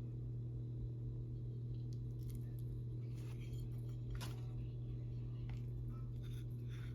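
A steady low hum with a few faint, scattered clicks and taps over it.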